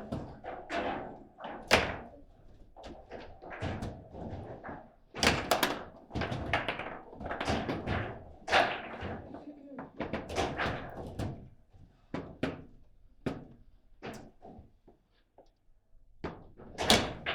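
Table football in play: irregular sharp knocks and thuds as the ball is struck by the rod figures and slams against the table, with the loudest hits about two seconds in and near the end.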